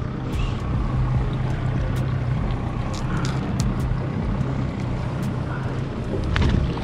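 A boat motor running steadily at low speed, a low even hum, with scattered light clicks and knocks of handling over it.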